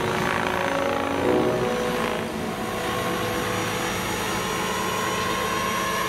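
Radio-controlled scale model helicopter in flight, its rotor and drive making a steady, even sound with a constant whine as it passes.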